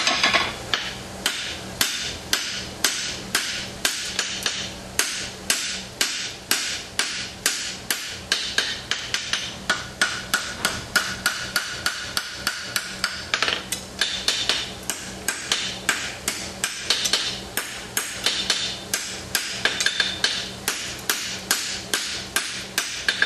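Steady hand-hammer blows on a hot steel tong blank against an anvil, about three strikes a second, forging the offset into the tong jaw.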